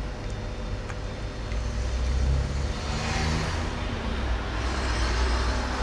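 A motor vehicle passing on the street: a low engine rumble with tyre hiss that grows louder partway through and swells twice.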